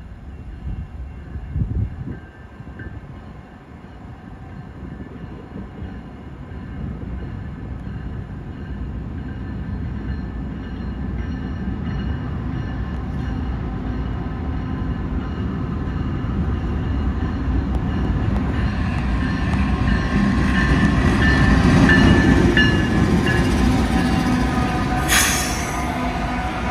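Norfolk Southern freight train's diesel locomotives approaching and passing. The low rumble grows steadily louder, is loudest about 22 seconds in, and a single sharp bang comes about 25 seconds in as the locomotives go by.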